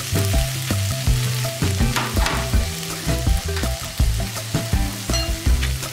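Boiled long beans going into a hot non-stick pan of shallots and spices fried in coconut oil and sizzling, with a wooden spoon knocking and scraping against the pan as they are stirred.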